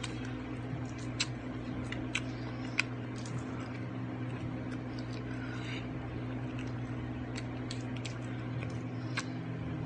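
Eating sounds: scattered sharp clicks and soft wet squishes of chewing, over a steady low hum.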